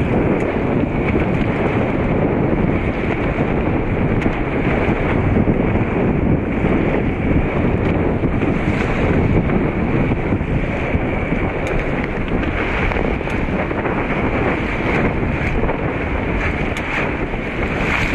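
Strong wind buffeting the microphone over the rush of choppy water against the hull of a small sailboat, a Chrysler 22, under way. Loud and steady.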